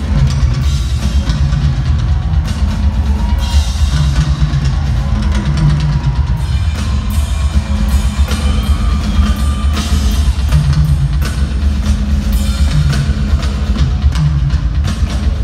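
Rock drum kit played live through an arena PA in a drum solo: bass drum, rolling tom fills and frequent cymbal crashes, loud and steady throughout.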